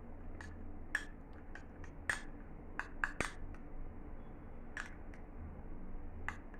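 A spoon clicking and scraping against a small bowl while stirring honey and ginger juice together. The clicks are light and irregular.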